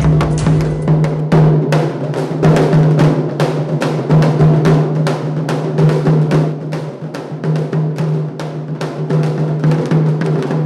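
Music: a steady, fast drum beat with snare and bass drum over a held low drone.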